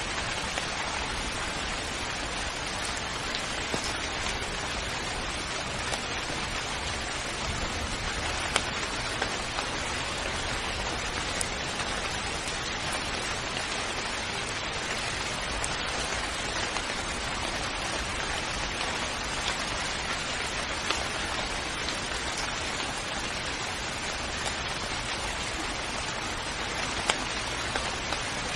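Steady rain falling, a dense even hiss with occasional sharper drop hits standing out.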